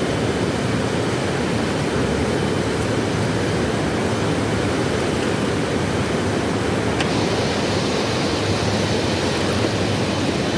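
Swollen river rushing steadily, a dense even wash of water noise, with a small click about seven seconds in.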